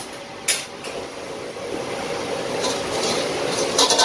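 Steady roar of a commercial kitchen's gas wok range and extraction, with a low hum under it. A brief sharp click comes about half a second in, and a short cluster of clicks follows near the end.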